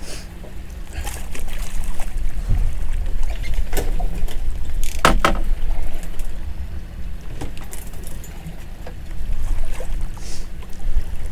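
Small boat at sea: a steady low rumble of wind and water, broken by a few sharp knocks, the loudest about five seconds in.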